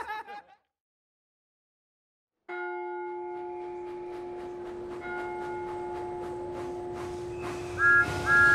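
Large clock-tower bell struck and left to ring and hum, with a second stroke adding brighter tones about halfway. Near the end a steam locomotive whistle toots twice, louder than the bell.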